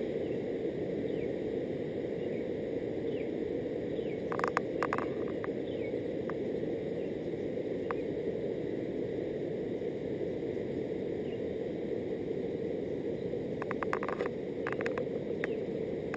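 Steady rushing roar of a river in flood. Brief clusters of short high chirps come about four seconds in and again near the end.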